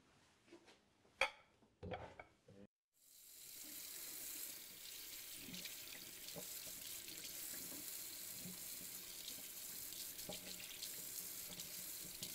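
A few light knocks, then from about three seconds in a kitchen tap runs steadily into a stainless-steel sink, splashing over a cured salmon fillet held under the stream to rinse off the salt-and-sugar cure.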